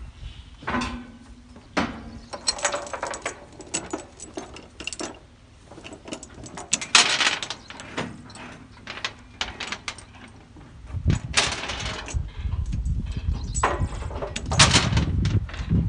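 Steel load chains clanking and rattling against a trailer's deck as a skidder is chained down, with a low rumble joining in from about eleven seconds in.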